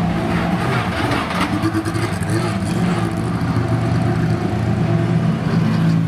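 Race car engines running at low revs: a Volvo race car drives slowly past along the pit lane while other race cars idle in the queue behind it. The engine note is steady, with no hard acceleration.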